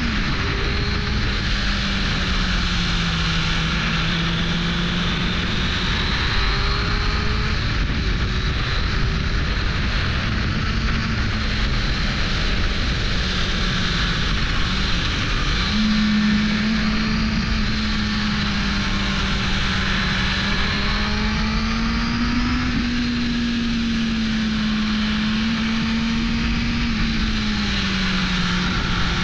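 1998 Suzuki GSX-R 600 SRAD's inline-four engine pulling steadily under way, its note sagging and rising gently with the throttle and jumping up quickly about halfway through, over steady wind rush on the microphone.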